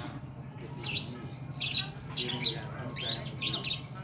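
Young lovebird practising its song: about five short bursts of high chirps and squawks, an immature bird's still-unformed warbling.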